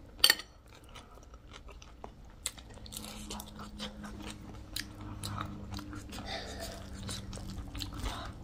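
Close-up chewing and crunching of chatpate, a spicy Nepali puffed-rice snack, eaten off spoons, with scattered small clicks and one sharp click just after the start.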